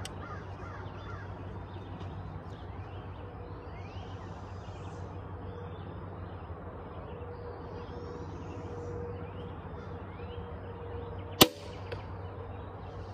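A crossbow firing once about eleven seconds in: a single sharp, loud crack, followed about half a second later by a fainter knock. Birds chirp throughout over a steady low hum.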